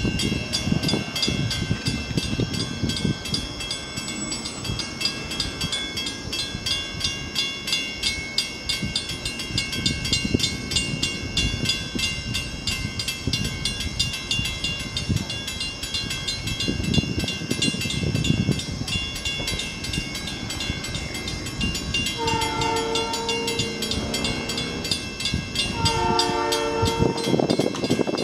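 Insects chirr steadily over a low rumble from the distant approaching train. About 22 seconds in, the locomotive's Nathan P3 three-chime air horn sounds a long blast. A second long blast comes about 26 seconds in, and a third begins at the very end.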